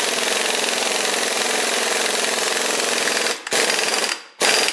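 Impact wrench hammering on the centre bolt, drawing the crankshaft hub of a Studebaker 289 V8 onto the crank. It runs in one long burst, then gives two short bursts near the end.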